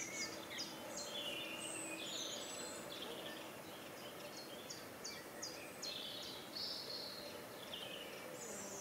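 Quiet outdoor ambience with small birds singing: quick series of short, high chirps and a few warbling phrases throughout.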